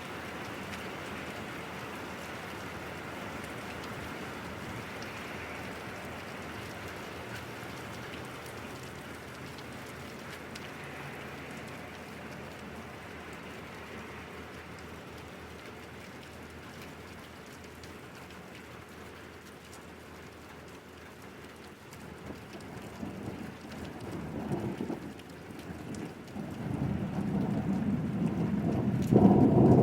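Steady rain falling. From about two-thirds of the way through, a rumble of thunder builds and grows loud near the end.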